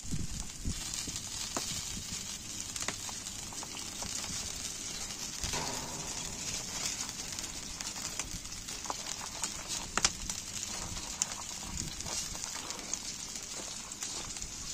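Charcoal fire sizzling under a whole animal roasting on a spit, with a steady hiss and scattered crackles and pops, the loudest pop about ten seconds in.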